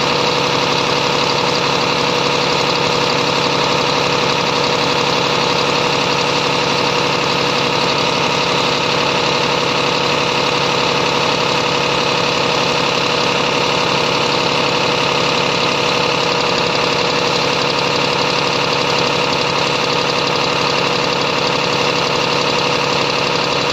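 BharatBenz 2828 truck diesel engine idling steadily, heard up close at the fuel pump during a diesel metering unit pressure test.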